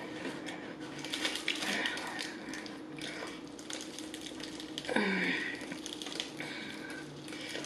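Crispy fried-chicken breading crackling as a piece of KFC fried chicken is picked up off its paper liner and pulled apart by hand, in a run of close crackles and clicks. About five seconds in there is a short falling tone.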